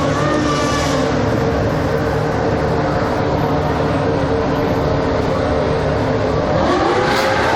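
Formula One car's 2.4-litre V8 engine running at a high, steady pitch, then rising sharply in pitch near the end as the car accelerates.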